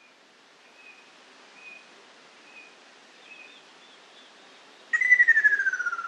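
Ruddy kingfisher's song: a loud rolling trill, starting about five seconds in, that slides steadily down in pitch. A few faint short whistled notes come before it.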